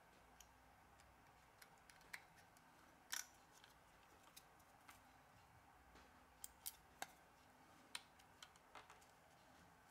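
Faint, scattered small clicks and taps of tweezers working the flex cables and connectors of a smartphone's internal frame, irregular, with the sharpest click about three seconds in and a few more close together past the middle.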